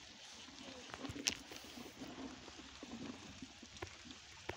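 Faint handling and movement noise from someone walking on wet grass and straw with a plastic bucket: soft rustling, a low watery murmur and a few light clicks, the sharpest about a second in.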